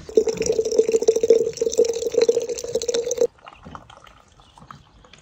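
Liquid pouring steadily for about three seconds, then stopping suddenly.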